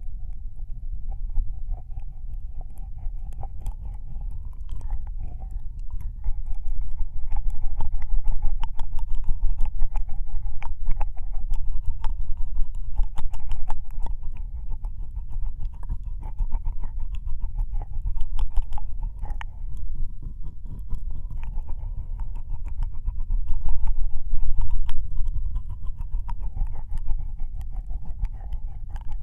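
Ear-licking ASMR on a binaural microphone: close, wet tongue and mouth sounds, a dense, irregular run of wet clicks and smacks over a steady low rumble.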